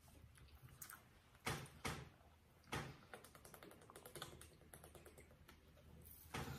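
Plastic water bottle handled and drunk from: three sharp clicks, then a run of small fast crackles of thin plastic.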